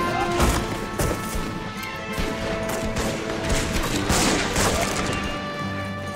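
Movie gunfight: a string of revolver and rifle shots with sharp impact hits, several a second at times, over a film score of held tones.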